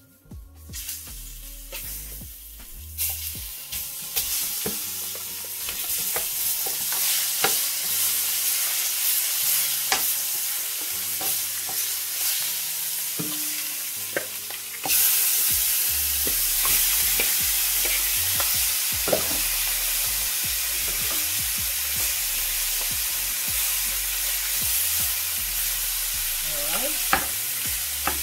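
Chicken pieces sizzling and frying in hot oil with burned curry powder in a frying pan. The sizzle builds over the first few seconds and jumps louder about halfway, as more pieces go in, with occasional knocks of chicken and a slotted spoon against the pan.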